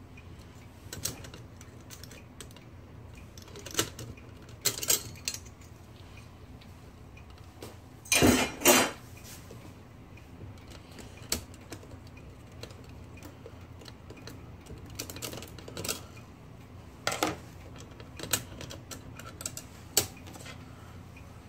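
Metal parts of a vintage manual typewriter clinking and knocking as it is taken apart by hand: scattered sharp clicks and taps, with two louder knocks about eight seconds in.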